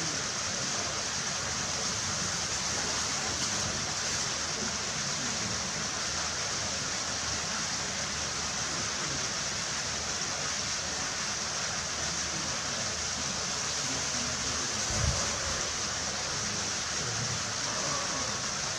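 Steady rushing of running water pouring into a polar bear enclosure's pool, a constant hiss-like wash. A brief low thump comes about three-quarters of the way through.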